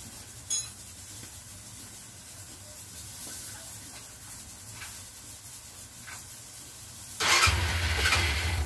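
A motorcycle engine starting near the end: a short loud burst as it cranks and catches, then it settles into a steady low idle. Before that there is only quiet, with a single click about half a second in.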